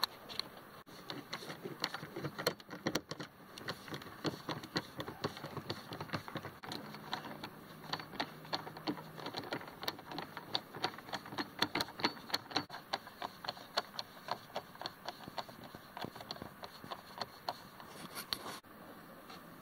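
A ratcheting hand screwdriver clicking in quick runs as screws are backed out of a plastic door trim panel.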